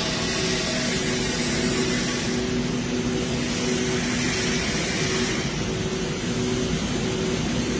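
A machine running steadily: a constant noisy rush with a low hum of a few steady tones that drop out briefly now and then.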